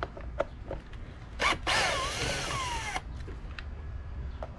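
Cordless drill-driver backing out a bolt on the underside of a steering wheel. A few light clicks, then the drill runs for about a second and a half, its whine falling, rising and falling again, followed by more clicks.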